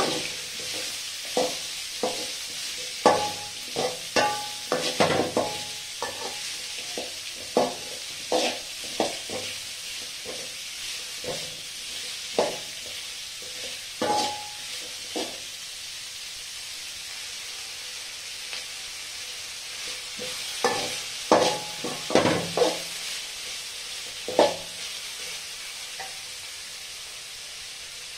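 Sliced onions and curry leaves sizzling as they fry in an aluminium kadai, with a slotted metal spatula scraping and clinking against the pan in bursts of stirring. The stirring stops for a few seconds midway and again near the end, leaving only the sizzle.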